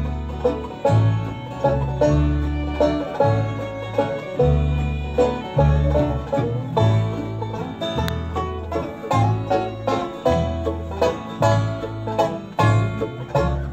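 Bluegrass band playing a waltz: banjo, mandolin, upright bass, two fiddles and acoustic guitar, with the bass keeping a steady pulse of low notes.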